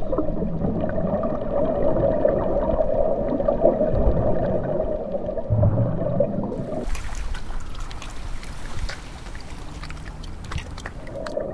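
Underwater ambience: a steady murky rumble with a hum and gurgling water, giving way about seven seconds in to a quieter, thinner hiss with scattered clicks.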